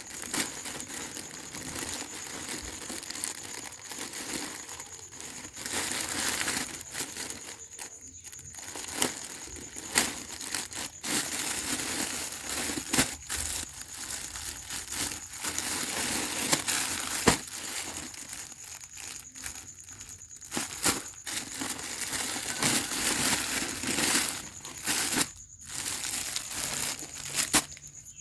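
Packaging being handled and opened: continuous irregular crinkling and rustling with many sharp clicks and taps.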